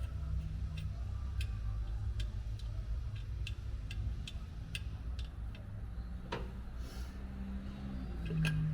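A run of light sharp clicks, two or three a second and unevenly spaced, over a steady low hum.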